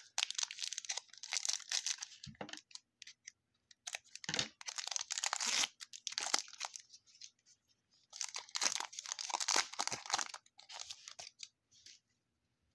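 Foil trading-card pack wrapper being torn open and crinkled, in three spells of crackling.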